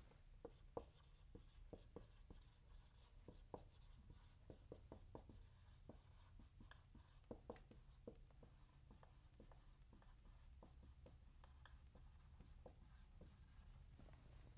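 Faint, irregular squeaks and taps of a dry-erase marker writing words on a whiteboard.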